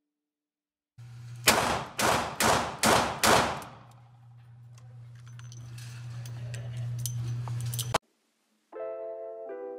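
Ruger SP101 revolver firing five .357 Magnum rounds in rapid succession, about two shots a second, each echoing in an indoor range, over a steady low hum. Light clicks follow, and music begins near the end.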